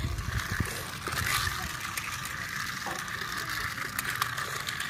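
A battery-powered toy car's small electric motor and plastic gears running with a steady whir as it drives along a flexible plastic track, with a few low knocks in the first second.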